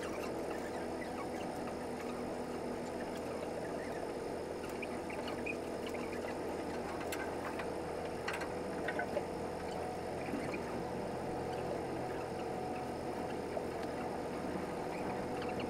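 Steady drone of a Hankyu Ferry car ferry under way, heard inside its lounge: engine and ventilation noise with a constant hum. A few faint clicks come about halfway through.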